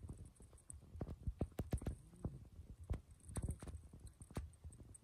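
Wet slaps and splashes from hands grabbing at fish in a shallow muddy puddle, coming as irregular knocks several times a second.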